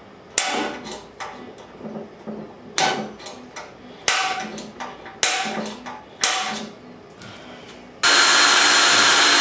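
A run of sharp metallic knocks on the steel frame tray of a motorcycle, five of them loud, each ringing briefly, with lighter taps between them. About eight seconds in, a power tool starts and runs loudly and steadily.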